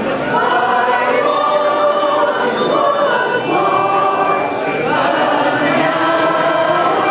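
Many voices singing a hymn together, sustained without a break.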